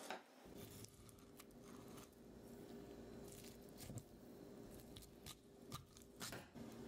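Faint scraping and a few short clicks of a kitchen knife working on a raw amadai (tilefish) on a plastic cutting board, over a steady low hum.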